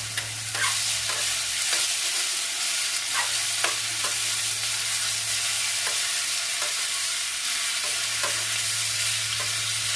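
Chopped apple frying in ghee in a pan with a steady sizzle while a spoon stirs it slowly, the spoon scraping and clicking against the pan every second or so.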